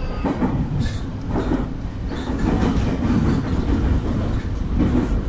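Nankai electric train running, heard from inside the front cab: a steady low rumble of wheels on rail with irregular clacks as the wheels pass over points and rail joints.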